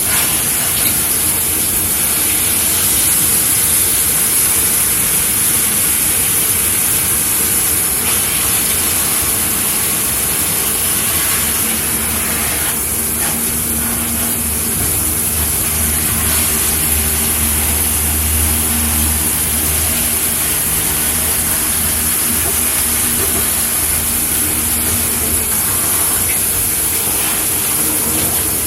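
Shower head running, water spraying and splashing steadily.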